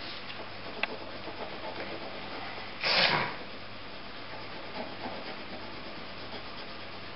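Coloured pencil scratching and rubbing on paper as a drawing is coloured in, with a click just under a second in and a brief louder swish of the paper about three seconds in.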